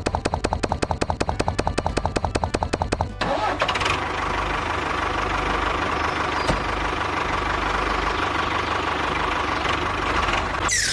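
Engine being cranked with fast, even strokes for about three seconds, then catching and running steadily. A short falling swish comes at the very end.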